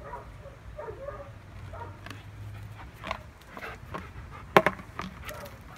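Faint sounds from a Doberman with a frisbee in her mouth, with a few sharp clicks; the loudest is a clack about four and a half seconds in.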